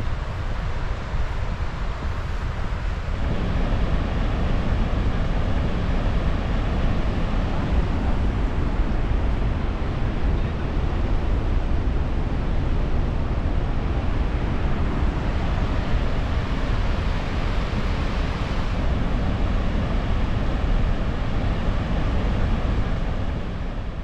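Steady road and wind noise from a car driving, a rushing noise heaviest in the low end that gets louder about three seconds in.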